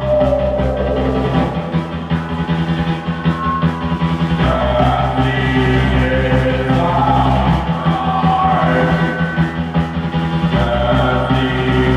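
Live rock band playing loudly. The low bass notes shift about every three seconds under a wavering lead line.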